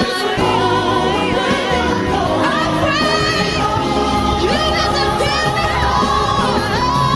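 Gospel ballad playing: solo voices singing over a backing choir, with piano and bass underneath.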